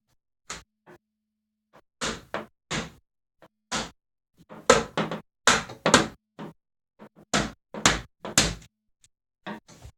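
PVC glazing beads being knocked into place around a new sealed glass unit: a string of sharp, irregular knocks, loudest and closest together in the middle of the stretch.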